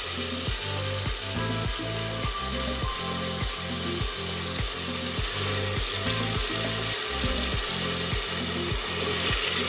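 Oil sizzling steadily as chopped tomatoes and onions fry in an aluminium pot, over background music with a steady beat and bass line.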